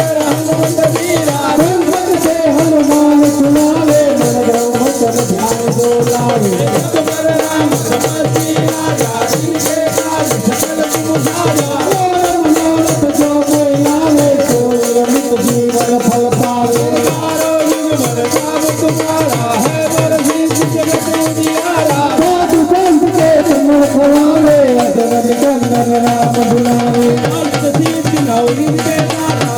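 Devotional folk song music: a wavering melody line over a fast, steady percussion rhythm with a shaker-like rattle.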